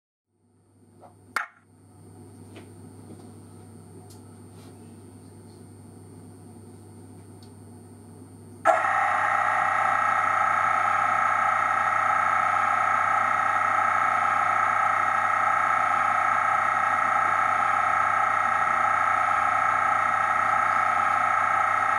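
Sound-fitted OO gauge BR Class 40 model diesel locomotive's engine sound, cutting in suddenly about a third of the way in and then running steadily through the model's small speaker. Before it, a low steady hum and a couple of clicks.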